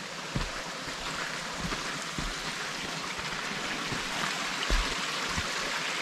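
Mountain stream rushing steadily over rocks, with a few soft low thumps.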